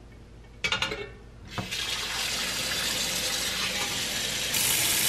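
A few light knocks as a stainless steel stock pot is set in the kitchen sink. The faucet then comes on, and cold water runs steadily into the pot over beef bones to cover them for the first boil, a step louder near the end.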